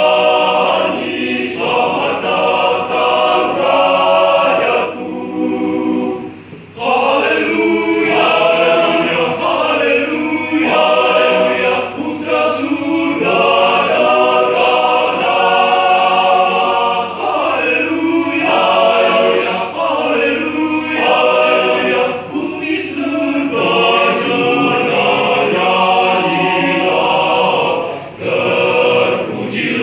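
Men's choir singing in several-part harmony without instruments, with a short break about six seconds in.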